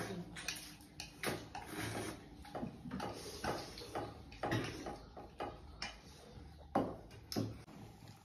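Chopsticks clicking and clinking against stainless steel bowls in short, irregular taps, mixed with noodles being slurped.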